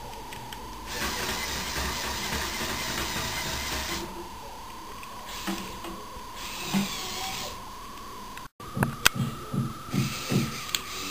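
Lego Mindstorms robotic arm's electric motors whirring through their plastic gearing as the arm moves and its hand closes on a bottle: one steady run of about three seconds, then a shorter burst. Near the end comes a quick run of six or seven low knocks, with a faint steady high whine underneath throughout.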